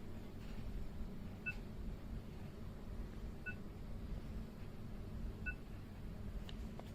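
Kids' instant print camera giving three short electronic beeps, evenly spaced about two seconds apart, over a steady low hum.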